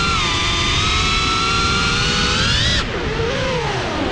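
FPV racing quadcopter's electric motors and propellers whining, heard through the onboard GoPro over a rush of air. The pitch holds steady and creeps up, then drops suddenly about three seconds in as the throttle is chopped for a dive or roll, and after that it wavers up and down as the throttle is worked.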